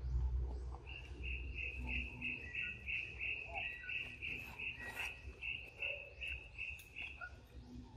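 Forest insects calling: a faint chirp repeats about three times a second throughout. Over it, a louder pulsing call runs at roughly three pulses a second from about a second in until near the end. A low rumble of wind or handling noise comes in the first two seconds.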